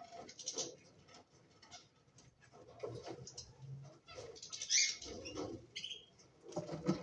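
Cockatiels chirping in short, scattered calls, with a louder call about five seconds in, among light clicks and rustling.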